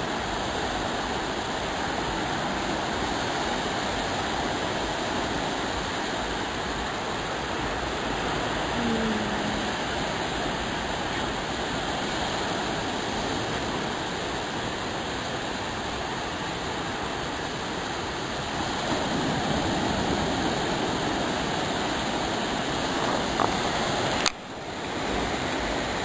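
Small waves breaking and washing up the sand at the water's edge: a steady rush of surf that swells a little about two-thirds of the way through. Near the end a sharp click, and the sound dips for a moment.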